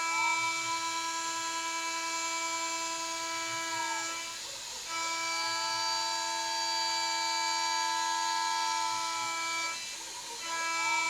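High-speed CNC spindle whining steadily while milling aluminium. The whine dips and its pitch bends briefly about every five seconds, as the load changes.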